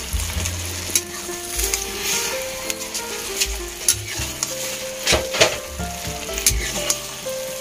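Pancit guisado sizzling in a hot wok while a metal ladle stirs and tosses the noodles. A few sharp clacks of the ladle against the pan come about a second in and twice around five seconds in.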